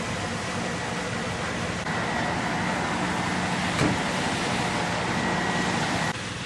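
Vehicle engines running steadily under a wide hiss of traffic through water on a flooded road. The sound changes abruptly about two seconds in and again near the end, with a brief knock near the middle.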